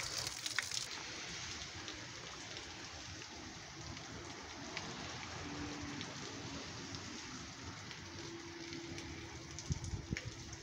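Steady rain falling, an even hiss with scattered ticks of drops; a few low thumps near the end.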